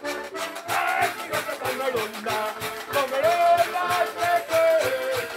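A folk band playing live: a button accordion and a singing voice carry the tune over a steady, quick beat with jingling, rattling percussion.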